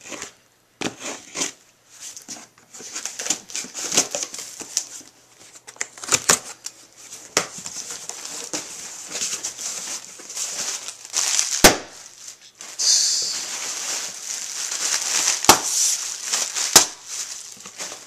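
Shipping package and its packing material being opened and handled by hand: continuous crinkling and rustling with many sharp clicks and crackles.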